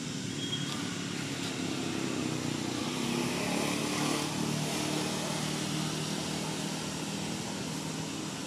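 A motor vehicle's engine running steadily, growing louder to about four seconds in and easing off a little after, as of a vehicle passing by.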